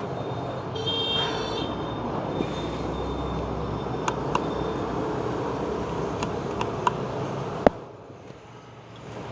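A small screwdriver clicking and tapping on a ceiling fan's wire terminal connections as they are loosened: a few sharp clicks, the loudest near the end, over a steady hum of street traffic, with a brief horn-like toot about a second in.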